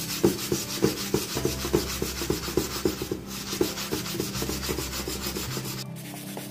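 Steel-wool scrubber scouring back and forth over the outside of a metal kadai, about three strokes a second, working dishwashing liquid and baking powder into burnt-on oil grime.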